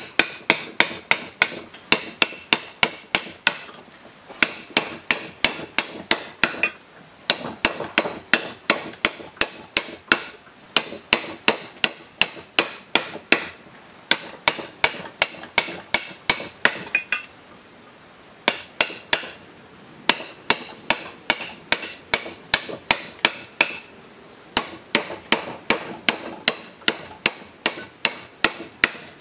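Hammer striking a chisel inside the steel casing of a burnt-out electric water-pump motor, with quick ringing metal-on-metal blows, about four a second, in runs broken by short pauses. The chisel is cutting the old copper windings out of the stator so the motor can be rewound.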